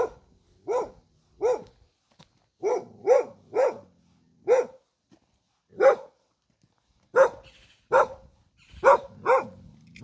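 A dog barking repeatedly: about a dozen short barks at uneven intervals, some in quick pairs and triples.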